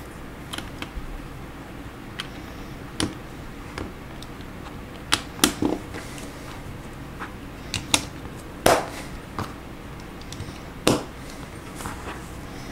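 Plastic Lego bricks clicking and snapping as they are pressed onto a small model car, with irregular sharp clicks and taps, a few louder ones in the middle.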